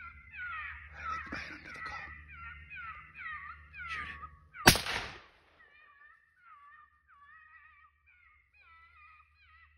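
Predator call playing a cat-like distress wail as a string of repeated falling cries. A single gunshot cracks about halfway through, with a long echo, and after it the cries go on more faintly.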